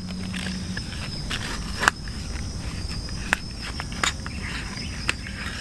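A few sharp clicks and knocks from a sheathed hatchet being strapped onto a nylon backpack, its buckles and straps handled. Under them, a steady high insect drone.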